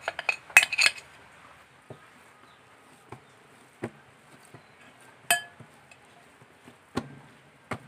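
A mixing bowl knocking and scraping against a silicone baking mat in a quick cluster in the first second, as the last of the dough is tipped out. Then hands kneading bread dough on the mat, with a few scattered soft slaps and taps.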